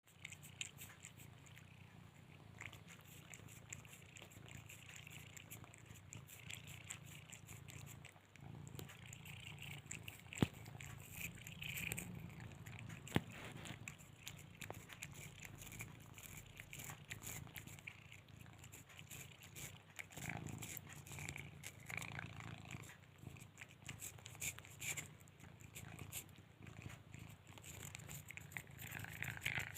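Domestic cat purring steadily, with a few sharp clicks about ten and thirteen seconds in.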